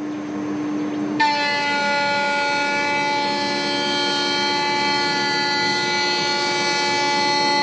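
CNC spindle whining steadily while surfacing a wooden board. For about the first second the whine thins to a lower hum, then the full high-pitched whine comes back sharply and holds steady.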